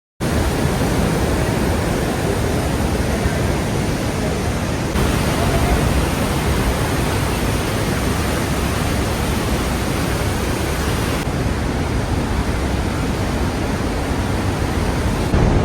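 Loud, steady rushing noise with no clear pitch, heaviest in the low range. It shifts slightly in level and character about five and eleven seconds in, where the footage cuts.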